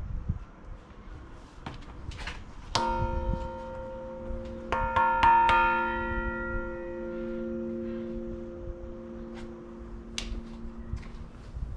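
Bronze church bell struck, ringing on with a long, slowly fading hum; about two seconds later a quick run of about four strikes rings out over it.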